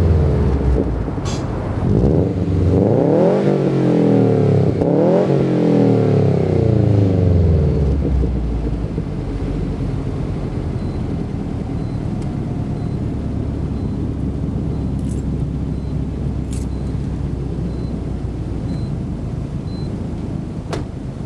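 2009 Subaru WRX's turbocharged 2.5-litre flat-four through a TurboXS cat-back exhaust, revved up and down a few times while parked, then settling to a steady idle for the rest.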